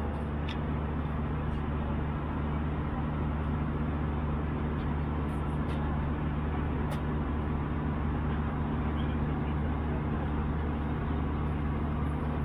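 Steady cabin drone of an Airbus A319 airliner in flight: a constant low engine hum under airflow noise, with a few faint clicks.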